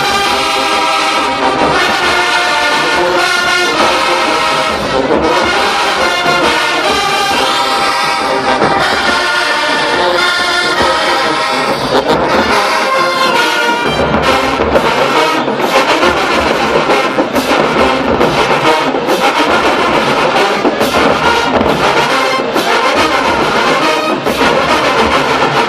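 HBCU marching band playing: the brass section holds loud chords, and from about halfway a driving drum beat joins under the horns.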